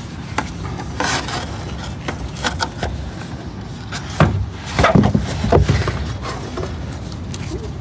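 Handling noise from a metal combination square and a pencil being set against and drawn along a thin GRP (fibreglass) roof trim: scattered light clicks, taps and scrapes, busiest around four to six seconds in, over a steady low background rumble.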